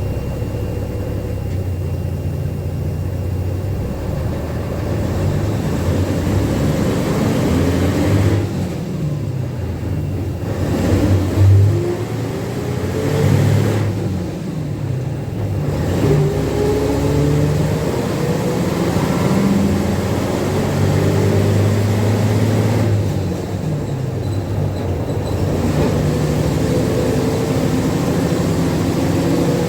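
Ikarus IK 161 bus under way: the diesel engine and drivetrain run hard with rising whines as it gathers speed. About three times the higher sound drops away briefly before the pitch climbs again.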